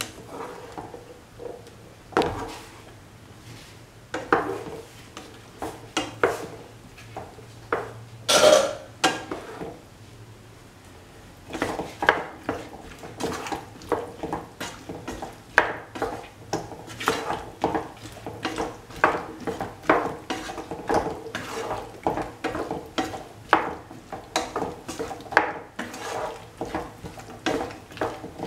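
A cooking utensil scraping and knocking against a pan as chopped bottle gourd is stirred and turned over. The strokes are scattered at first, then become a steady run of about two a second from roughly halfway.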